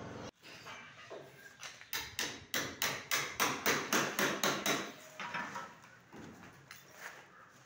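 A hammer striking repeatedly in quick succession, about four blows a second for some three seconds, then tailing off, during wall-tiling work.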